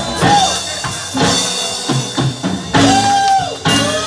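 Live rock band playing: drum kit hitting hard under electric guitar, as the song winds down to its end.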